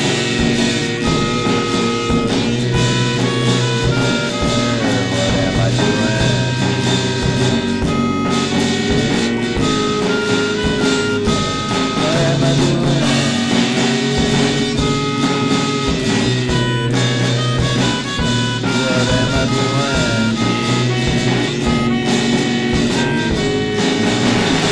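Instrumental break in a song: band music with a drum kit and held melody notes over a steady bass line, without singing.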